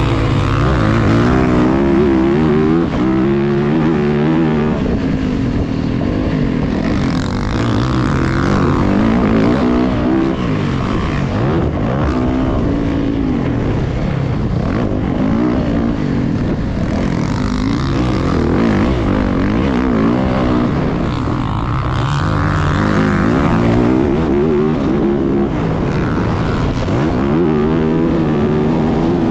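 Dirt bike engine heard close up from the riding bike, revving up and dropping back again and again as it accelerates and shifts around a motocross track.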